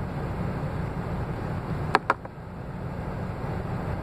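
Two quick sharp sniffs of dry nasal snuff about two seconds in, one right after the other, over the steady low hum of the truck cab.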